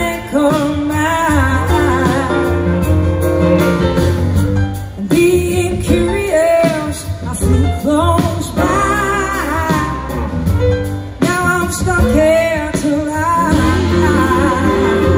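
Live band playing a slow soul-rock song, with a woman singing lead over electric guitar, bass, drums, keyboards and horns, recorded from the audience.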